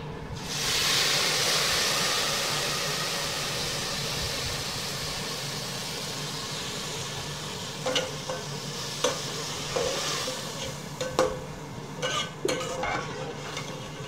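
Water poured into hot oil and browned vermicelli in an aluminium pot sets off a loud sizzle that slowly dies down over several seconds. From about eight seconds in, a metal slotted spoon clinks and scrapes against the pot as the mixture is stirred.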